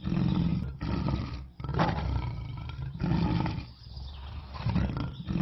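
Lion roaring, a run of deep, rough roars broken by short pauses, about five in a row.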